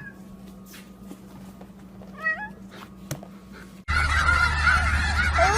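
A cat gives one short meow that rises in pitch, about two seconds in, against quiet room tone. Near the end, a louder steady noise with a low hum cuts in.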